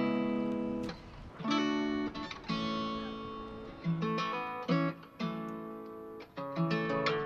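Background music: acoustic guitar strumming chords, each struck chord ringing and fading, about one a second.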